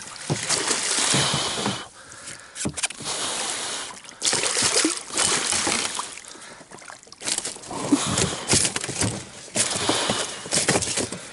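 Water splashing and sloshing in uneven bursts, with scattered knocks, as a hooked pike thrashes while being landed.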